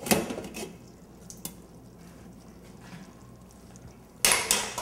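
Stainless steel pressure cooker being handled in a steel sink: a sharp metal knock as the cool-water rinse ends, a few light clinks and drips, then a louder clatter of pot and lid near the end.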